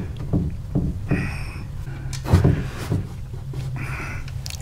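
Scattered metallic clicks and knocks from a hand unscrewing the oil drain plug on a Harley-Davidson Twin Cam oil pan, over a steady low hum.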